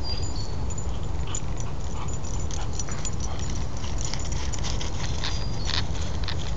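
Dry fallen leaves crackling and rustling in short, irregular bursts under a Boxer dog's paws and a walker's steps, over a steady low rumble on the microphone.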